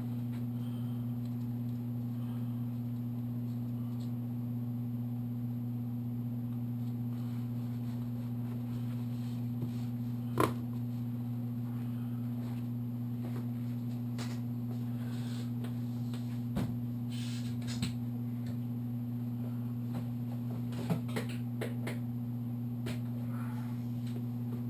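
Scattered light metallic clicks and clinks of engine clutch parts being handled, the loudest about ten seconds in and a cluster near the end, over a steady low hum.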